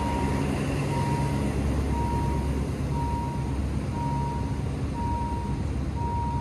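A vehicle engine running steadily under an electronic warning beeper that sounds a single steady tone about once a second, each beep about half a second long.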